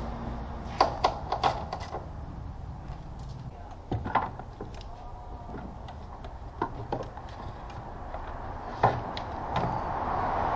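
Hard plastic clicks and knocks as the plastic cowl panel at the back of a BMW E90's engine bay is handled and pressed into its clips: a quick cluster of clicks about a second in, then single knocks spaced a few seconds apart.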